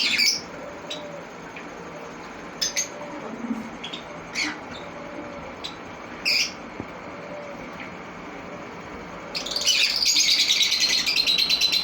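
Green-cheeked conures calling: a few short, separate squawks in the first seven seconds, then loud, continuous, rapid chattering from about nine and a half seconds in.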